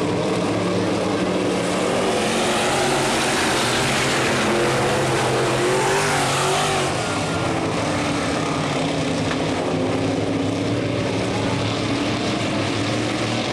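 A pack of dirt-track modified race cars racing at full throttle, several engines running together. Between about four and seven seconds in, engine pitch slides down as cars go past.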